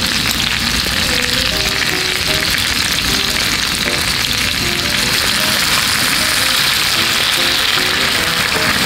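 Pork slices and vegetables sizzling steadily in a frying pan over a gas burner.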